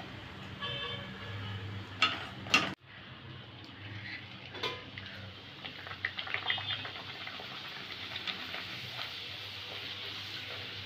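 A luchi deep-frying in hot oil in an iron kadai: steady sizzle and crackle of bubbling oil. A couple of sharp metal clinks of the steel slotted spoon against the pan come about two seconds in, as the dough goes into the oil.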